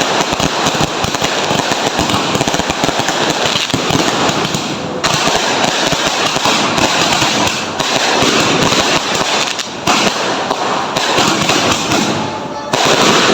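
Fireworks and firecrackers going off in a dense, continuous barrage of rapid crackling pops, loud throughout, with sudden changes in intensity a few times.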